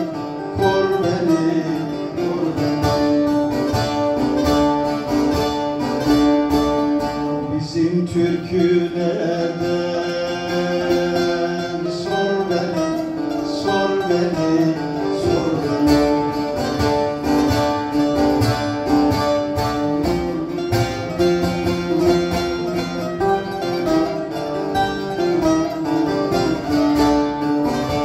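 Bağlama (long-necked Turkish saz) being played: a plucked melody of quick repeated strokes with notes that step and slide in pitch.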